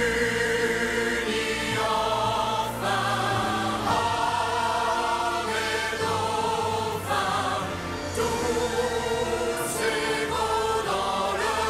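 Choir singing a sweeping show tune with orchestral accompaniment: long held notes with vibrato, moving to a new chord every second or two.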